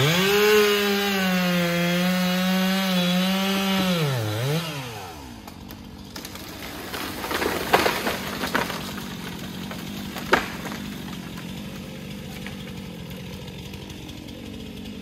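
Gas chainsaw at full throttle cutting wood, its pitch wavering slightly under load, for about four seconds; the throttle is then let off and the saw drops to a quieter steady run, with a few sharp cracks about halfway through.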